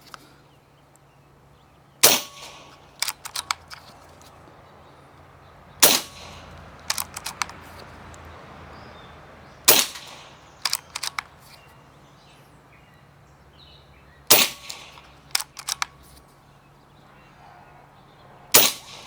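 Five shots from a .22 Hatsan Flash PCP air rifle, spaced about four seconds apart, each followed about a second later by a quick run of smaller clicks.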